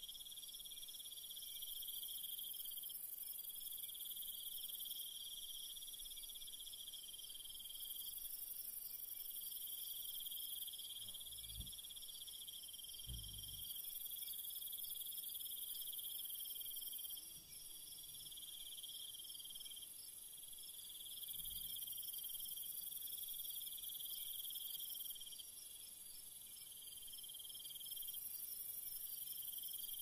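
Night chorus of insects: steady, high-pitched trilling in several layers that keeps going throughout. A few soft low thumps come near the middle.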